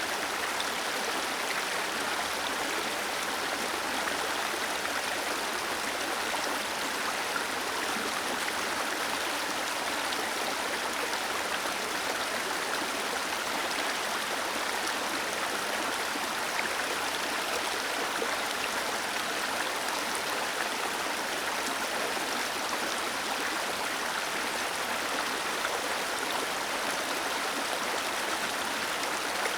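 Small waterfall and stream: water cascading and rushing in a steady, even splashing roar that does not change.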